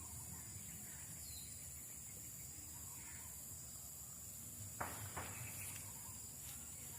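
Insects keeping up a steady high-pitched chorus, with a brief rustle about five seconds in.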